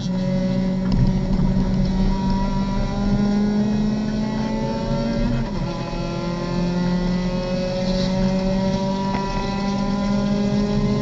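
Race car engine heard from inside the cockpit under hard acceleration, its note climbing steadily. About halfway through the pitch drops at an upshift, then it climbs again.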